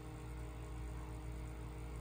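A steady low hum with a faint regular pulsing in it.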